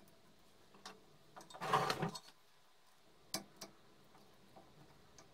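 Small handling noises from fitting the wires into a brass lamp holder: a brief rustle about two seconds in, then a couple of light metallic clicks as a small screwdriver is set to the holder.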